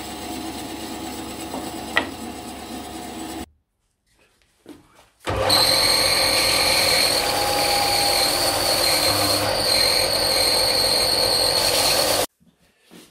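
Bandsaw running, stopping about three and a half seconds in. After a short gap a bench belt sander runs, louder and with a steady high whine, as a small wooden piece is sanded on its belt, cutting off near the end.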